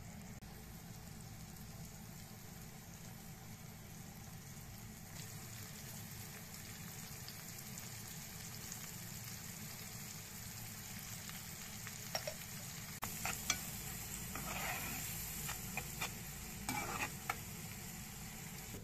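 Sliced onions and red peppers sizzling steadily in oil in a nonstick frying pan. In the second half a spoon stirs them, with several sharp clicks and scrapes against the pan.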